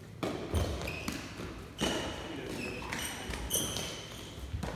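Sneakers squeaking briefly several times on the sports-hall floor, with a few footstep thuds and shuffling as players move between rallies. The sound rings in the large hall.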